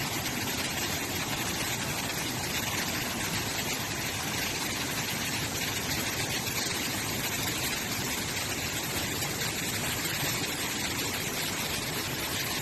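Steady, even rush of a waterfall in full monsoon flow, the sound of heavy falling water.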